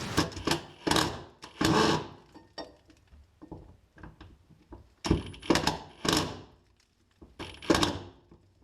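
Hand tools knocking and clunking against metal parts: a series of separate short thunks with gaps between.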